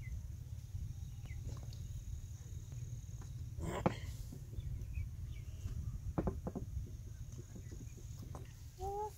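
Outdoor rural ambience: a steady low rumble under a faint, steady high insect drone, with a few sharp clicks and knocks around the middle and a short pitched call near the end.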